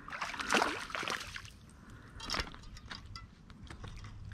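Shallow creek water splashing and sloshing in a few separate bursts, the loudest about half a second in.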